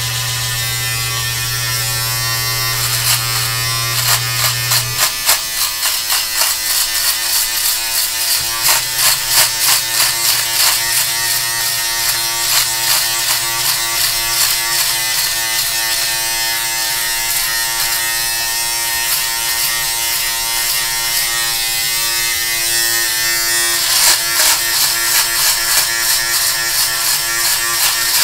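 Electric beard trimmer running with a steady buzzing hum while it is pushed through a full beard under the jaw and down the neck. The hum shifts about five seconds in, and from then on it comes in quick, uneven pulses as the blades cut through the hair.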